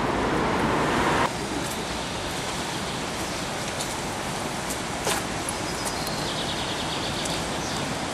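Steady rushing noise of the fast-flowing, flood-swollen Vltava, louder for about the first second and then dropping to a lower even hiss, with a faint click about five seconds in.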